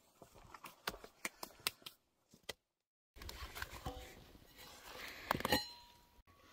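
Rustling and scattered small clicks of hands and a hand tool working loose garden soil, with a few louder knocks near the end after a brief break in the sound.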